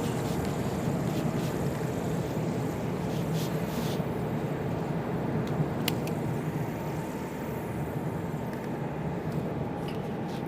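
Steady engine and road noise inside a moving car, a low hum, with a few faint clicks.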